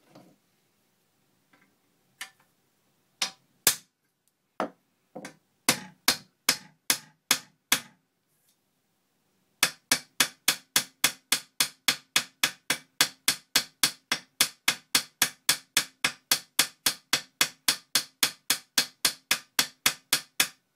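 Hand hammer peening over a rivet in a steel scale-locomotive frame plate, the rivet's head backed by a rivet snap held in a vise. A few light taps build into firmer blows, then after a brief pause a steady run of sharp strikes follows, about three a second, closing the rivet into its countersink.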